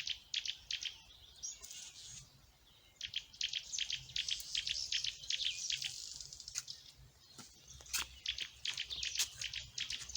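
Small birds chirping in fast runs of short, high notes, with a brief pause about two seconds in and a few sharp clicks.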